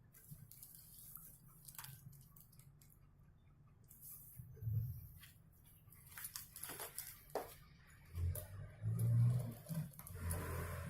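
Faint handling noise: scattered clicks and rustles, with a run of low thumps in the last few seconds.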